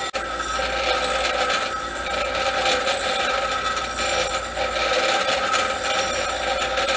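Steady, harsh mechanical noise with a constant whine running through it.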